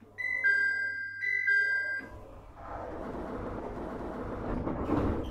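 Door chime of a JR East 701 series train: a falling two-note chime played twice. It is followed by the doors sliding with a rushing air noise that ends in a thump as they reach their stop.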